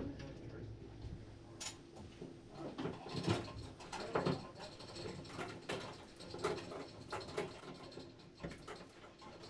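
Hand tools at work on a boat's inboard engine mounts and shaft coupling: scattered, irregular metal clicks and knocks, a few of them ringing briefly.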